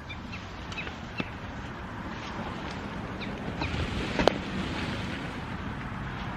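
Wind buffeting the microphone, a steady low rumble, with a few sharp clicks, the loudest about four seconds in.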